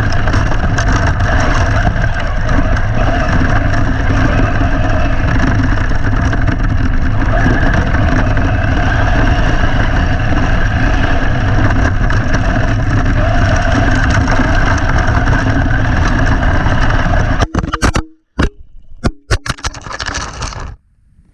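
Team Corally Shogun V2 RC car running on 6S, heard up close: a loud, steady mix of motor and drivetrain noise and wind rush. Near the end it breaks up into a few sharp knocks and short bursts, then cuts out suddenly.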